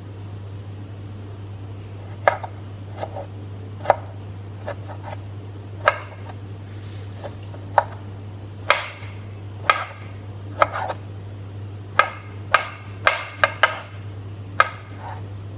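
Irregular sharp knocks of a kitchen utensil against a hard surface during food preparation, some ringing briefly. They come about one a second, with a quick run of five about three-quarters of the way in.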